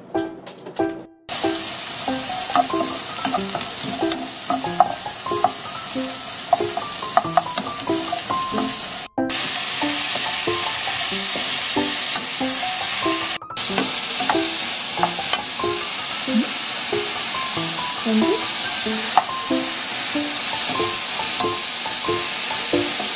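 Cubes of lean beef with carrot and broccoli sizzling as they are stir-fried in a hot pan: a steady frying hiss that starts about a second in and breaks off briefly twice.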